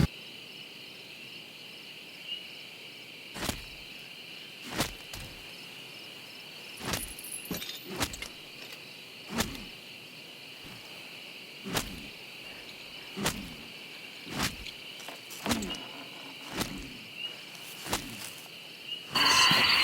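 A steady high chorus of night insects, with slow, evenly paced footsteps or thuds roughly once a second over it.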